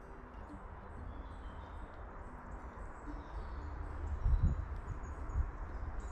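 Footsteps on a dirt forest path over a low rumble, with a couple of heavier thumps near the end. Faint birds chirp in the background.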